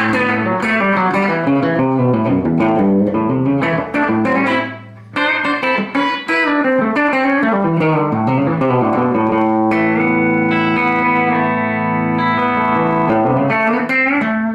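Electric guitar, a Telecaster-style Harley Benton BeeGee Bender with a G-string bender, played through a Fender Twin amplifier. It plays picked single-note phrases and chords, pauses briefly about five seconds in, then lets longer held chords ring from about ten seconds.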